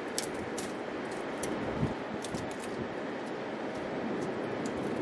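Steady wash of ocean surf and wind, with light, sharp clicks and snaps of dry twigs and brushwood being handled and broken by hand.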